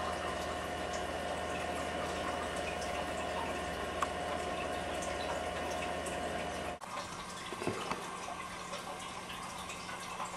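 Steady trickling, water-like noise with faint drips, under a low steady hum that cuts off abruptly about two-thirds of the way through.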